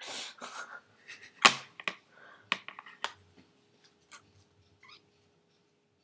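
Sharp clicks and taps of a plastic makeup compact being handled and snapped, the loudest about a second and a half in, after a breathy noise at the start.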